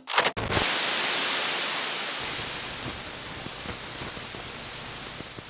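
Static hiss, like a detuned TV or radio, fading slowly, with faint crackles in it. A few short sharp sounds come first.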